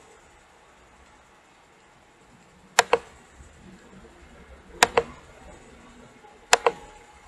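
Computer mouse button double-clicked three times, each a pair of sharp clicks, the pairs about two seconds apart and the first nearly three seconds in.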